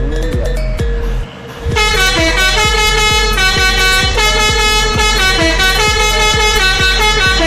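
Indonesian 'telolet' multi-tone bus horn playing a melody. A held note breaks off briefly about a second and a half in, then a quick run of changing notes follows, over a low engine hum.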